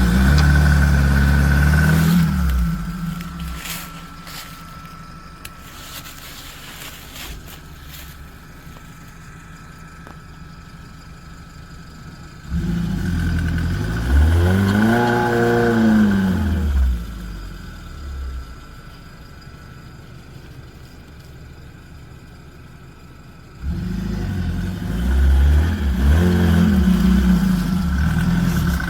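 Off-road vehicle's engine revved hard three times as it tries to climb a rutted, washed-out obstacle with a tire spinning. Each rev rises and falls in pitch, with a lower steady running sound between.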